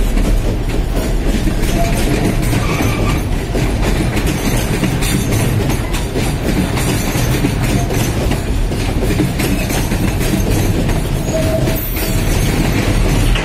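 Freight train hopper and gondola wagons rolling past at close range: a steady rumble of steel wheels on the rails with clickety-clack over the rail joints, and a few brief faint wheel squeals.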